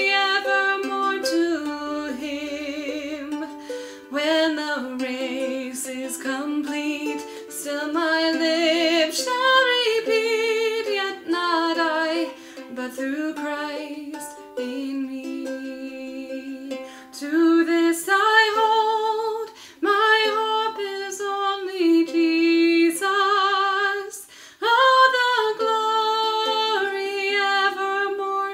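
A woman singing a slow song with vibrato, accompanying herself on a strummed ukulele.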